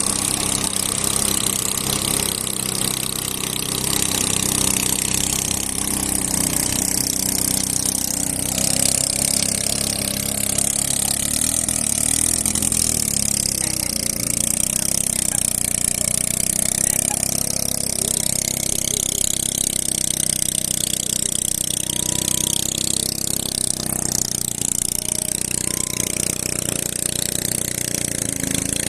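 A motor running steadily, with a constant high hiss over it.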